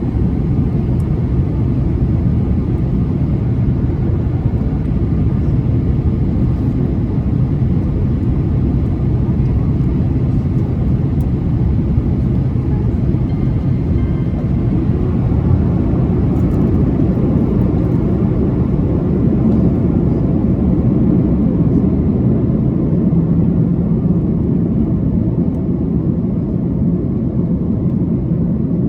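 Steady low rumble and hiss of cabin noise inside an Airbus A330-300 in descent: airflow over the fuselage and its Rolls-Royce Trent 700 engines.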